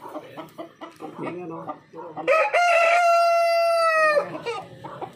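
A rooster crowing once, loud: a short broken opening, then a long held note of nearly two seconds that drops slightly as it ends.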